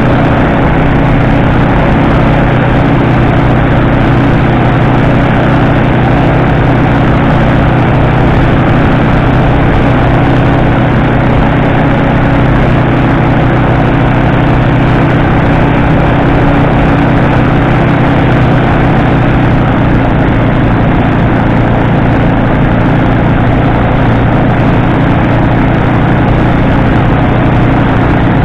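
Fanagoria microlight trike's engine and pusher propeller running steadily in level flight, a loud continuous drone with no change in pitch.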